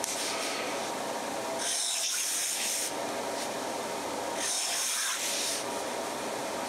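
Gold fountain-pen nib of a Mabie Todd Swan 3220 scratching across Rhodia paper in two long strokes, each about a second, the first shortly before two seconds in and the second past four seconds in. A steady background hum runs underneath.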